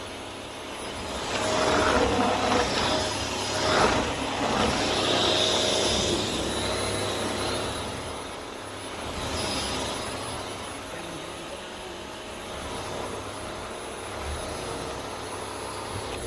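Vax Air Steerable Max upright vacuum cleaner running, its motor and suction sound rising and falling several times as it is pushed through cleaning passes.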